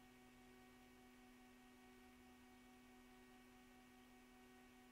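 Near silence with a faint, steady hum of a few fixed tones.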